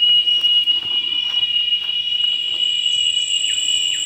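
Forest insects making a steady, high-pitched drone, with a second, higher tone joining about two seconds in.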